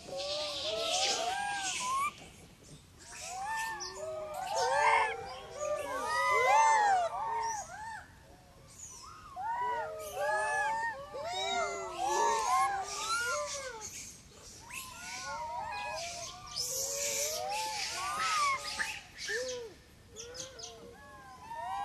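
Many macaques cooing together: short calls that rise and fall in pitch, overlapping in a busy chorus with brief lulls, and a few patches of higher hiss.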